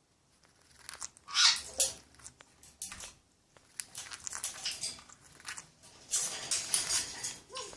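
Senegal parrot shuffling about and chewing in the nest box's wood shavings: irregular rustling, scratching and crunching with small clicks, loudest about a second and a half in and again near the end.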